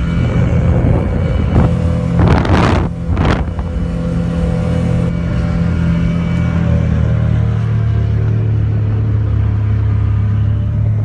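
Outboard motor of a small speedboat running at speed, a steady engine drone, with two brief rushes of noise about two and three seconds in. Its note drops a little about seven seconds in.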